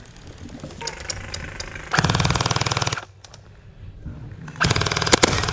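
Electric gel blasters firing full-auto bursts, a fast buzzing rattle of shots: a loud burst about two seconds in lasting about a second, and another near the end.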